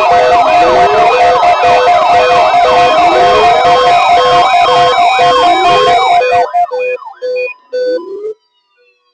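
Loud electronic siren and alarm tones layered over one another: pulsing steady beeps, quick falling chirps and a rising sweep that repeats about every two and a half seconds. The mix cuts off suddenly about six and a half seconds in, leaving a few short beeps that end a second and a half later.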